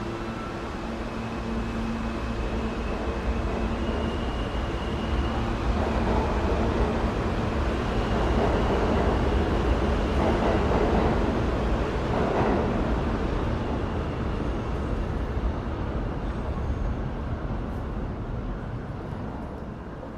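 New York City subway train running through the station, growing louder to a peak around the middle and dying away near the end, with a few steady whining tones in the first few seconds.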